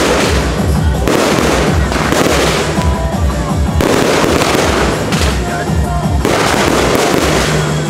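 Aerial fireworks shells bursting one after another overhead, a dense continuous barrage of bangs and crackle.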